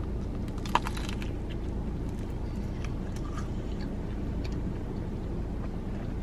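A bite into a bacon sandwich on sourdough bread: a few crisp crunches about a second in, then quiet chewing, over a steady low hum.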